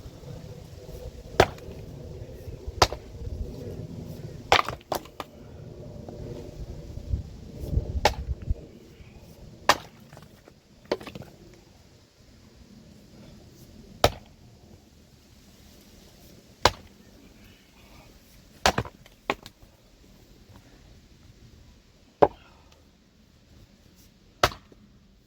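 An axe splitting firewood: about fourteen sharp chops at uneven intervals, some in quick pairs. A low rumble under the first third fades out.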